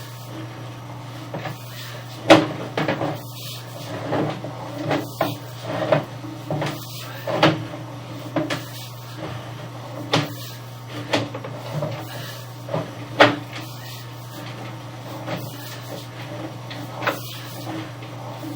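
Sewer inspection camera being pushed along a drain pipe: irregular knocks and clunks, one or two a second, loudest about two seconds in and again near thirteen seconds, over a steady low hum.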